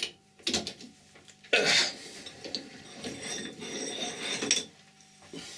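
Metal clinks, knocks and scraping as a freshly threaded workpiece is loosened and pulled out of a Colchester metal lathe's chuck, with a short knock about half a second in, the loudest clatter about one and a half seconds in, and a longer scrape near the end.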